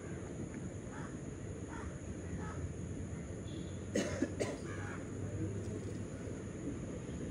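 A person coughing, a short double cough about four seconds in, over steady outdoor background noise with a few faint crow caws earlier on.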